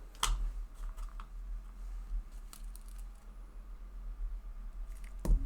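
Hands handling paper banknotes between counts, with quiet rustles and small ticks. There is a sharp tap just after the start and a louder one near the end, over a low steady electrical hum.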